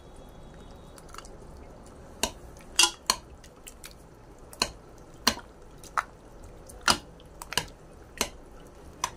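Steel spoon clinking and scraping against the side of a metal pot while stirring chunks of cooked pumpkin in liquid, with about a dozen irregular sharp clinks.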